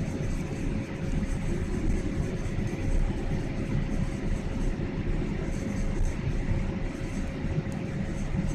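Steady roar of an airliner's engines and rushing air, heard inside the passenger cabin during the descent to land. A constant mid-pitched hum runs through the roar.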